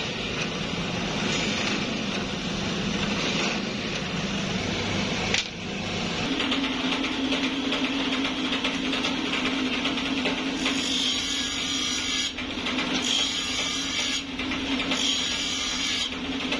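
Workshop machinery: a drill press running as it bores holes through a clutch facing, then, after a sudden change about five seconds in, a bench grinder motor humming steadily as a clutch facing is held against its wheel, with recurring bursts of higher grinding noise from about ten seconds in.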